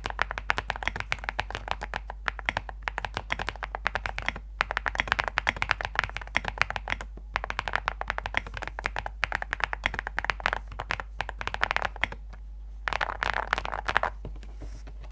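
Fast typing on a ZOOM65 mechanical keyboard with graphite gold switches, PC plate and full foam: a dense run of crisp key clacks with a few brief pauses, ending with a quick flurry before the keys stop near the end.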